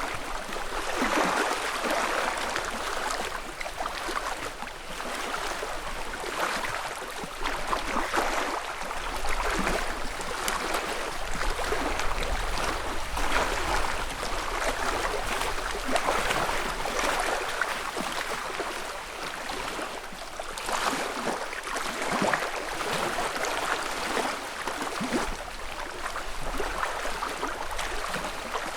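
Small ripples on a calm lake lapping and splashing irregularly against the shore, in a steady stream of little overlapping splashes.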